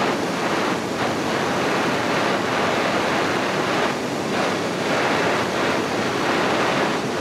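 Handheld gas blowtorch flame burning with a steady rushing hiss as it heats a glass tube. The sound dips slightly about three times.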